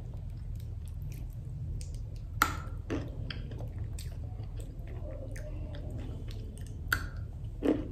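A person chewing a piece of chocolate with the mouth closed, with a few soft mouth clicks and smacks. A steady low hum runs underneath.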